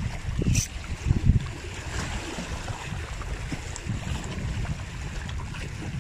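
Wind rumbling on the microphone over small waves lapping against the rocks of a breakwater, gustier in the first second or so, with a short hiss about half a second in.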